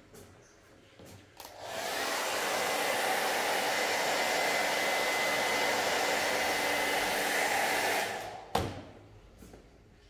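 Handheld heat gun blowing hot air to dry freshly screen-printed ink on a T-shirt. It comes on about a second and a half in and cuts off about eight seconds in, a steady rush of air with a thin whine through it. A sharp knock follows just after, as it is set back down on the table.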